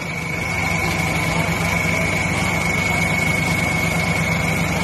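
Turbodiesel Toyota Fortuner engine idling steadily, with a steady high whine over it.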